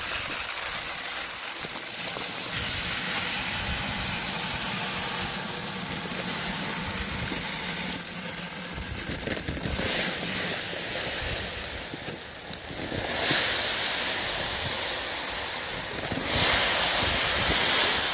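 Small grain-byproduct pellets pouring from a woven bag into a plastic broadcast-spreader hopper: a steady hissing rattle that swells louder a few times, most of all near the end.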